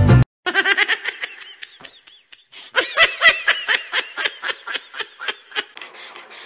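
A person laughing hard in rapid, high-pitched peals, one after another. Near the end the laughter stops and a steady hiss begins.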